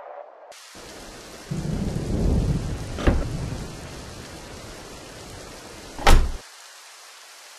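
Steady rain, with thunder rumbling from about a second and a half in and a sharp crack at about three seconds. About six seconds in comes a loud sudden crack, after which the low rumble drops away abruptly and only a thin hiss remains.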